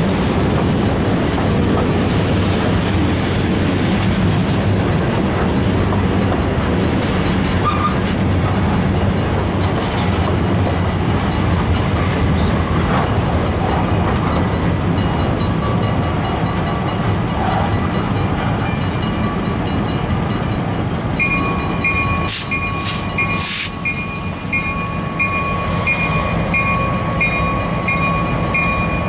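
Freight train of covered hopper cars rolling past, a steady rumble and clatter of wheels on rail. About two-thirds of the way in, a grade crossing's warning bell starts dinging over it in a steady repeating ring.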